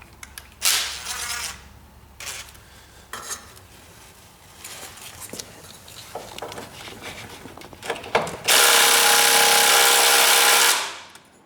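Socket and wrench work on rusty motor-mount bolts of an old car chassis: scattered short scrapes and clanks of metal tools. Near the end comes a loud, steady mechanical run of about two seconds that stops abruptly.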